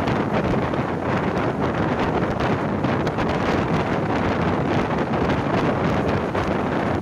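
Wind buffeting the microphone at the open door of a moving passenger train, over the steady running noise of the coach on the track.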